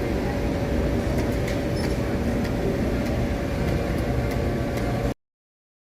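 Collaborative welding robot running its taught weld path: a steady mechanical din with a constant hum and faint crackle, cut off abruptly about five seconds in.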